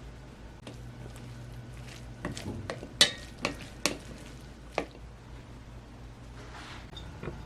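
Kitchen utensils knocking and clinking against cookware, with a cluster of sharp clinks about two to four seconds in and one more near five seconds, over a steady low hum.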